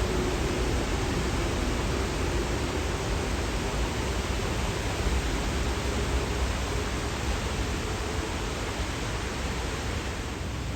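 Steady rain falling, an even hiss. A faint humming tone underneath fades away over the first few seconds.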